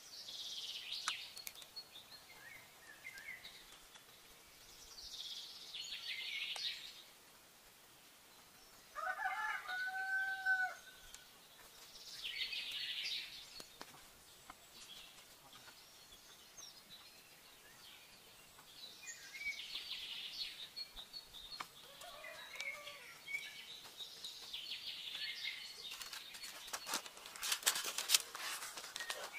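Birds calling around a forest camp in short high bursts every few seconds, with one longer, steady call about nine seconds in, like a rooster crowing. Near the end comes a run of clicks and taps as a bamboo pole is handled.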